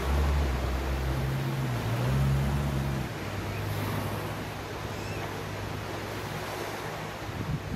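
Small waves washing onto a sandy beach, with wind on the microphone. An engine's low hum runs under it, loudest for the first three seconds, then dropping to a lower, quieter drone.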